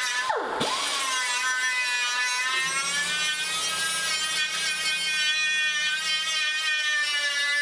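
Small handheld grinder running at high speed as it grinds down raised TIG weld filler on a steel 1935/36 Ford dash: a steady high whine whose pitch dips sharply once about half a second in, then wavers slightly as the wheel bites the weld.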